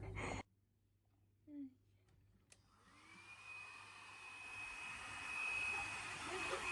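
Hair dryer switched on about two and a half seconds in: a click, then a steady blowing hiss with a high motor whine that rises briefly as it spins up and then holds steady.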